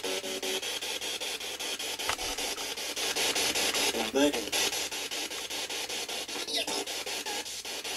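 Spirit box sweeping through radio frequencies: choppy static pulsing several times a second, with brief voice-like fragments about four seconds in.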